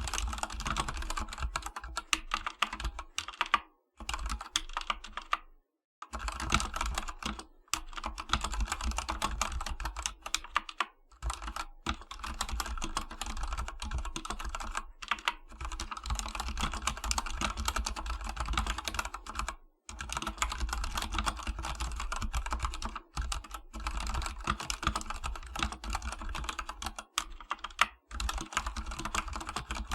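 Fast typing on an AKKO 3108 V2 World Tour Tokyo mechanical keyboard with Akko custom switches: a dense, continuous clatter of keystrokes broken by a few short pauses.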